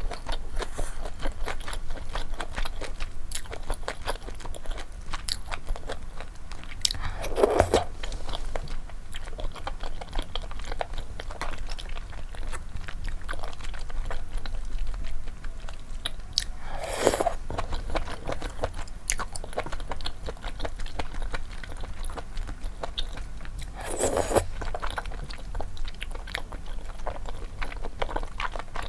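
Close-miked eating of spicy malatang with flat sweet-potato starch noodles: steady chewing with many small mouth clicks, and three louder, longer sounds spaced well apart.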